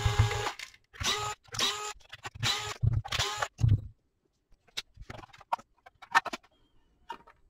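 DeWalt cordless screwdriver running in several short bursts, backing T10 screws out of a plastic battery-pack case. After that come scattered light clicks and knocks as the plastic cover is worked loose.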